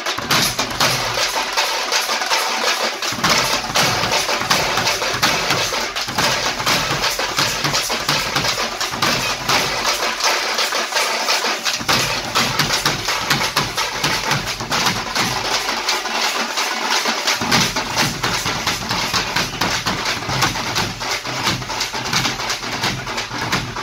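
A large ensemble of tamate frame drums beaten with sticks in a fast, dense, continuous rhythm. The deepest drum strokes drop out briefly a few times.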